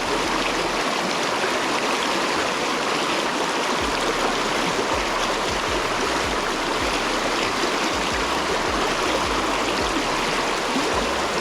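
Rain-swollen river current rushing steadily, a constant dense wash of water noise.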